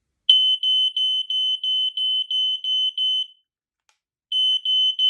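Battery-powered smoke alarm sounding its test alarm: a single high-pitched beep pulsing about three times a second, stopping after about three seconds and starting again a second later.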